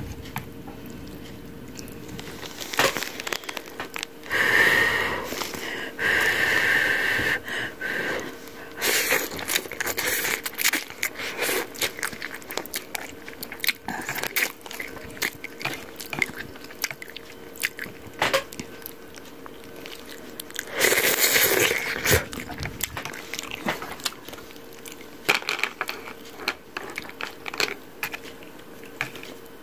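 Close-up sounds of eating nyuumen, thin sōmen noodles in hot broth: chewing and slurping, with several longer slurps and many small clicks and taps.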